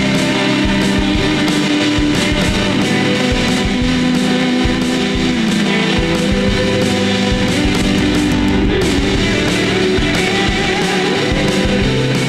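Shoegaze noise-rock music: a dense wall of distorted electric guitars over a steady drum beat.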